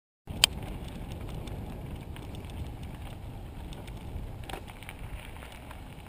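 Mountain bike rolling along a dirt trail: a steady low rumble of tyres and wind on the bike-mounted microphone, with sharp clicks and rattles as the bike goes over bumps, the loudest about half a second in.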